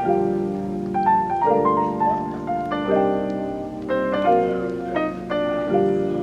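Background music: a gentle piano melody over held chords.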